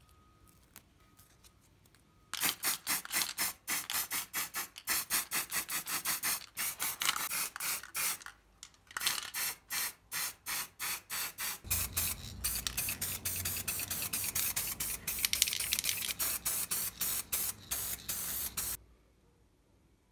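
Short hissing sprays in quick succession, about three or four a second, running for roughly sixteen seconds; about halfway through a low rumble joins underneath, and the spraying stops abruptly.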